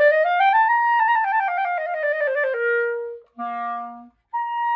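A Pereira 3D-printed blackwood Bb clarinet playing a scale. It climbs to its top note about a second in, steps back down to a held note, then plays two separate notes, a low one and then a high one.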